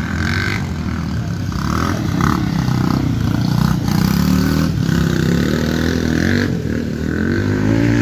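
Harley-Davidson Pan America 1250's V-twin engine running under load, its pitch climbing near the end as the bike speeds up.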